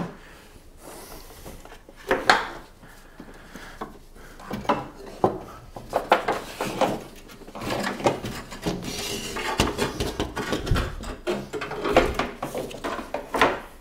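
Irregular clinks, knocks and scraping of car air-conditioning pressure pipes and their fittings being worked loose and pulled out of an engine bay by hand.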